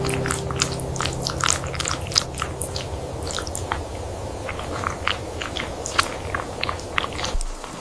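Close-up crunchy chewing: a rapid, irregular run of small crisp crunches as food is bitten and chewed.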